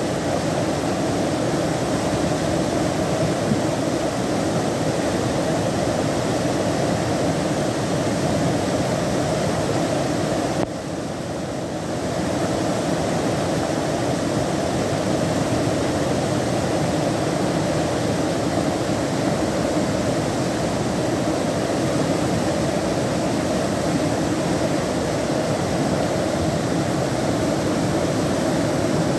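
Muddy floodwater of a swollen mountain torrent rushing past a bridge, a steady loud rushing noise; it turns briefly duller and softer for about a second a little before the middle.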